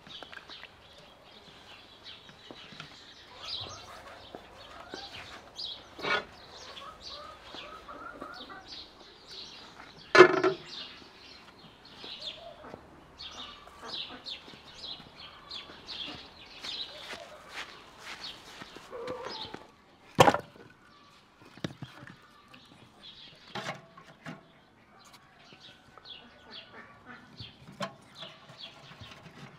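Small birds chirping and chickens clucking, with a few sharp knocks of firewood being handled and fed into a metal wood-burning stove, the loudest about ten and twenty seconds in.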